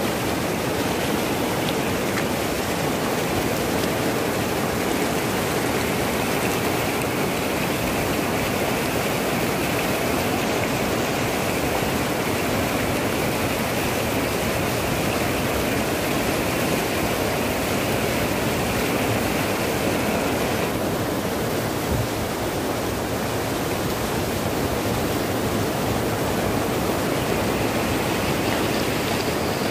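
Muddy floodwater rushing fast over and between boulders in a swollen mountain river: a steady, unbroken rush of white water.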